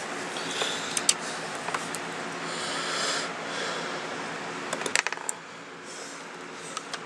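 Small plastic clicks and taps of hands working a replacement CMOS battery and its plug into the laptop's opened bay, with a cluster of clicks about five seconds in, over a steady low hum.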